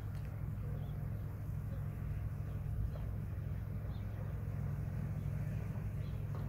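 Steady low engine hum, with a few faint bird chirps.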